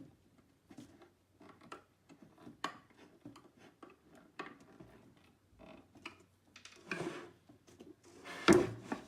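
Engineered-wood furniture panels being handled and fitted together: scattered light clicks and knocks, a rubbing scrape about seven seconds in, and one loud knock near the end.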